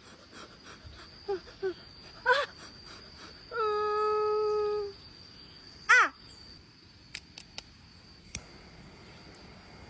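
A few short pitched animal cries, then one long call held at a level pitch, then a falling cry, over a steady high insect trill. A few sharp clicks follow near the end.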